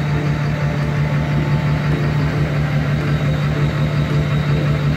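LLY Duramax 6.6-litre turbo-diesel V8 running steadily at low speed with an even, pulsing low hum as the truck creeps through flood water.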